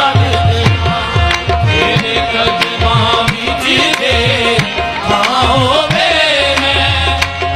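Live qawwali music: tabla drumming a steady rhythm under the held tones of a harmonium.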